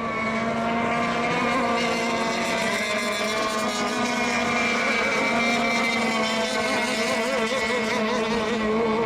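Several radio-controlled racing boats' motors running at once, their overlapping pitches wavering up and down as the boats circle on the water during fill time before the start.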